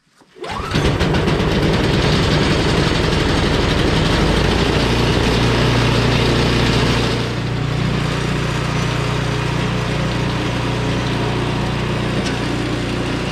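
John Deere walk-behind snowblower's small gasoline engine starting, catching at once and running steadily, settling a little lower about seven seconds in. With its tank pumped empty, it is being run to burn the last fuel out of the carburetor for storage.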